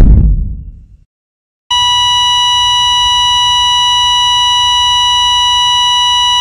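The tail of a loud bang dies away in the first second. After a short silence, a loud, steady electronic beep tone starts and holds unchanged.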